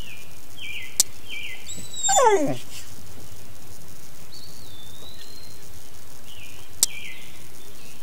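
A dog gives one falling whine about two seconds in, the loudest sound here, over short high chirps that repeat on and off and a steady outdoor background. Two sharp clicks, about a second in and near the end.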